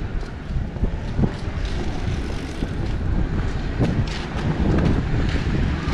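Street ambience: a steady low rumble of vehicle traffic with wind on the microphone, and a few short knocks scattered through it.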